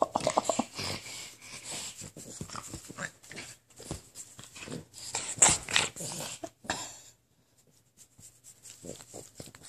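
A small dog making short playful noises and breathing hard as it wriggles on its back under a belly rub, with rustling of fur and couch fabric against a hand.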